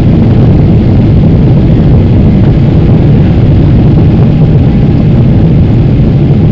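Steady, loud, low drone inside a Boeing 777's cabin during the climb after takeoff: jet engine and airflow noise heard from a window seat.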